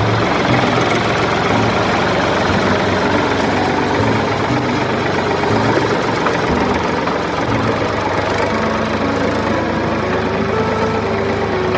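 A steady, engine-like running sound, with no clear starts or stops.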